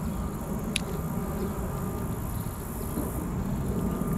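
Steady low rumbling background noise with a faint high buzz, and one sharp click just under a second in.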